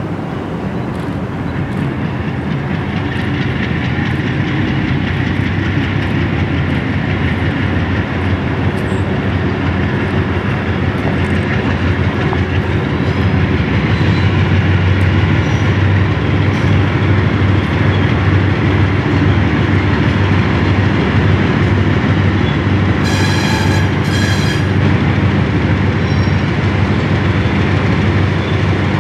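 GE B23-7 diesel locomotives' 12-cylinder engines drone steadily and grow louder as the train approaches, with wheels clicking over the rails. Two brief high-pitched squeals come near the end.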